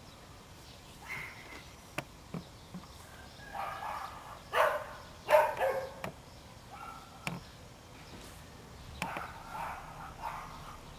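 A dog barking in short bursts off and on, the two loudest barks about halfway through, with a few sharp clicks in between.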